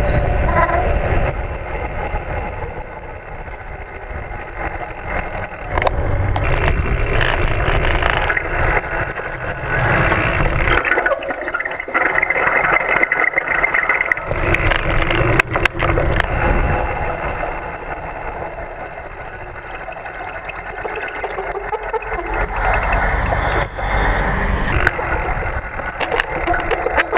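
Mountain bike riding over rough ground with low rumble, and its disc brakes squealing and grinding metallically at times under braking.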